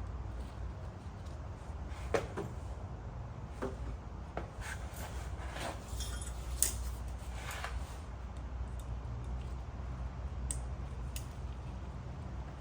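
Hands working on car taillight wiring, handling wires, tape and plastic wire-tap connectors. There are short rustles and a few sharp clicks, the sharpest about two seconds in and again midway, over a steady low hum.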